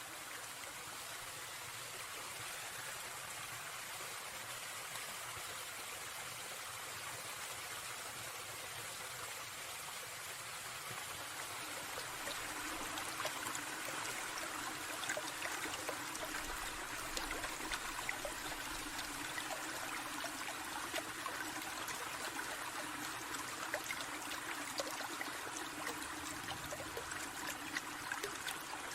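Forest stream trickling and babbling steadily, a little louder with small splashes from about halfway through.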